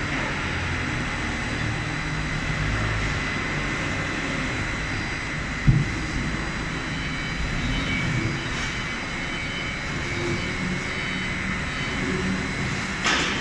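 Spindle veneer rotary lathe running steadily, a continuous machine noise with a faint steady whine. There is a single knock a little before halfway and a sharp click near the end.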